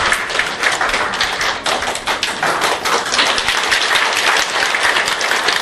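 Audience applauding, a dense steady clapping throughout.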